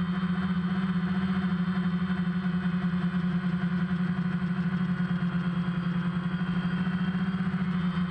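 DJI Phantom quadcopter's motors and propellers buzzing in a steady, even hum, heard from the camera mounted on the drone in flight.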